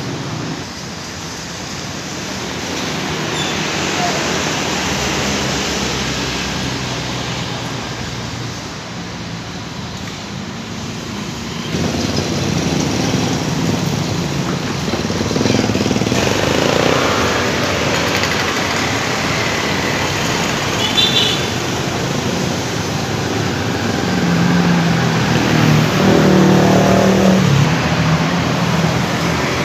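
Bus engines running at a bus depot: a steady vehicle hum with traffic noise, growing louder about twelve seconds in.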